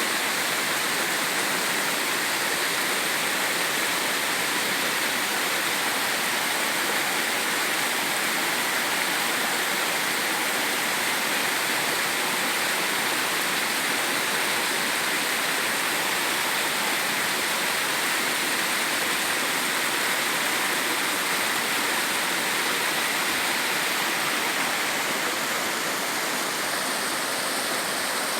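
Mountain stream water rushing steadily over rocks, a continuous even rushing noise.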